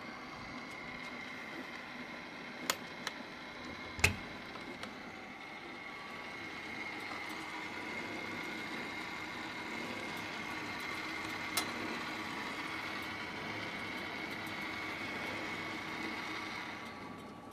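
Hata Iron Works HT-AP15SS-U 15-station rotary tablet press running on a test run: a steady mechanical hum with a high whine. A few clicks come early, with one sharp knock about four seconds in, and the hum drops just before the end.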